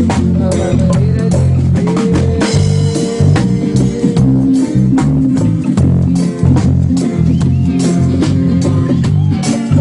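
A band playing a song: drum kit keeping a steady beat under bass guitar and guitar.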